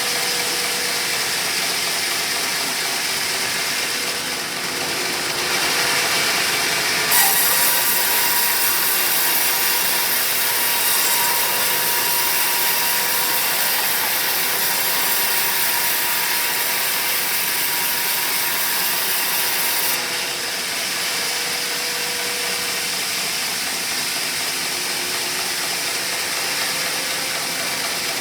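Homemade sawmill running steadily. About seven seconds in, the blade bites into a teak log with a sharp jolt and cuts with a louder, brighter sound. About twenty seconds in it drops back to running free.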